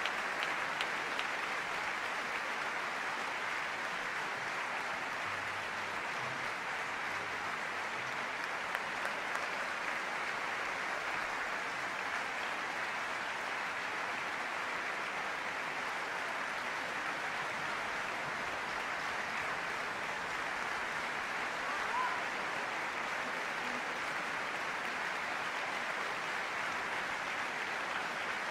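Large concert-hall audience applauding in a steady, unbroken ovation, with a few single claps standing out at the start.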